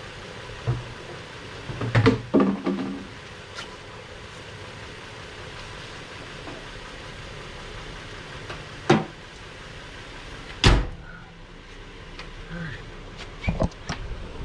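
Pickup truck's hood slammed shut about eleven seconds in, the loudest sound. A sharper knock comes a moment before it. A cluster of clattering knocks comes about two seconds in.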